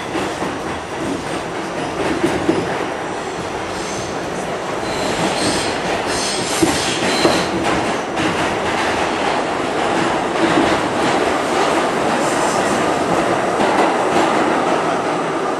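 New York City subway car running through a tunnel, heard from inside the car: a steady rumble of wheels on rail, with rattling and clicks over the rail joints, growing a little louder as it goes.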